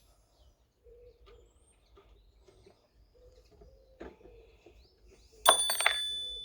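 Faint bird chirps, then a little past five seconds a sharp metallic clatter that rings briefly, as metal motorbike parts are handled and set down.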